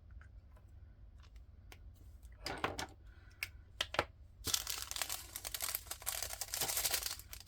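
Small plastic baggies being handled, crinkling and rustling with scattered clicks, then a longer stretch of dense rustling from about halfway through until near the end.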